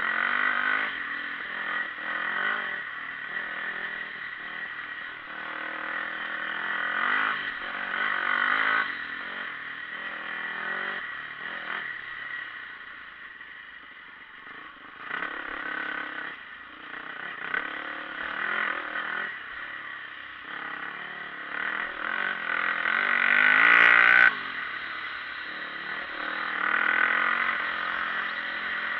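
Dirt bike engine being ridden hard along a bumpy dirt track, revving up and easing off over and over as the throttle opens and closes. Its loudest run-up comes about three-quarters of the way through and cuts off abruptly.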